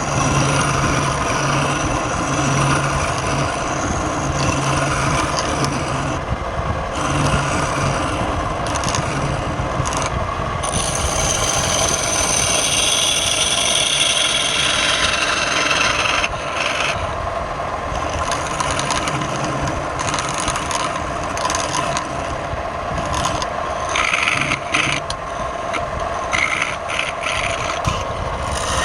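Wood lathe running, with a turning tool scraping against the spinning wood and a steady motor hum beneath.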